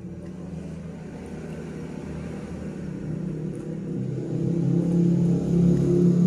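A motor vehicle's engine running and growing steadily louder, loudest near the end, as a vehicle approaches.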